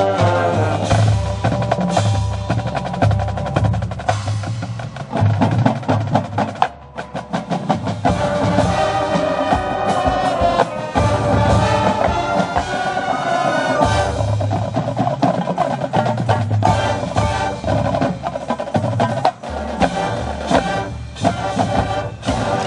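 High school marching band playing its field show: busy drum and percussion hits under held chords from the wind instruments, with a brief drop in level about seven seconds in.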